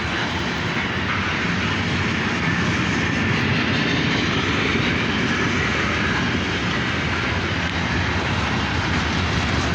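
Loaded coal train rolling slowly past, a steady even rumble and rush of steel wheels on the rails with no horn.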